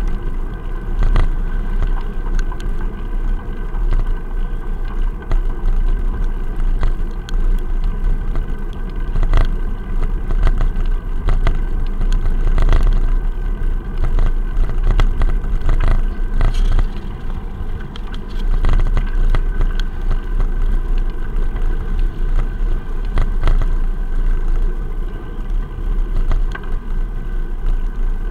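Steady low rumble of wind and road vibration picked up by a bicycle-mounted action camera inside its waterproof case while riding a wet cycle lane, with frequent small knocks from bumps in the path.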